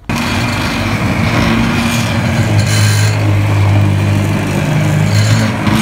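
Hand-held stick blender running steadily, its motor humming as it purées a pot of boiled red pepper into a smooth paste.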